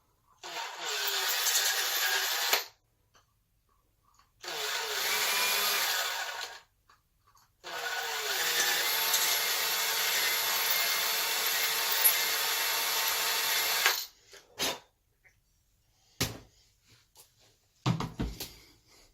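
Hand-held electric drill running in three bursts, the last and longest about six seconds, opening out the pin hole for the throttle shaft's taper pin freehand; a few light knocks of parts being handled follow near the end.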